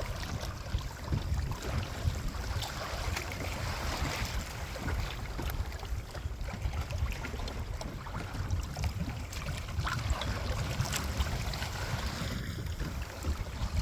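Wind buffeting the microphone over steady water noise from a small sailing trimaran under way.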